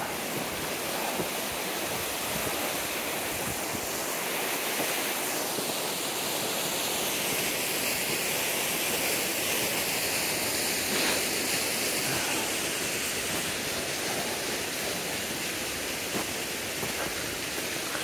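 Mountain stream rushing over rocks: a steady rush of water, a little louder in the middle.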